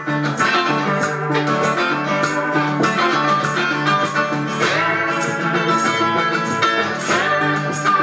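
Acoustic folk-blues band playing an instrumental passage: a Weissenborn-style lap slide guitar over guitar and harmonica, with the slide gliding up in pitch twice, near the middle and near the end.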